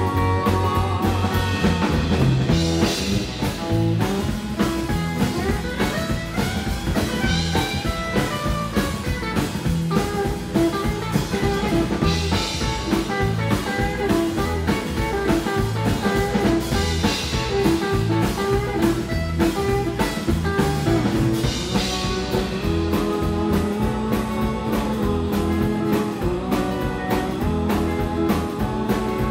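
Rockabilly band playing live: electric guitar and acoustic guitar over an upright double bass and drum kit, with no singing.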